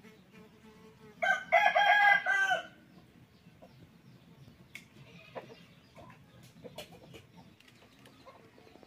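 A rooster crows once, loud, starting about a second in and lasting about a second and a half. Faint scattered knocks and clicks follow.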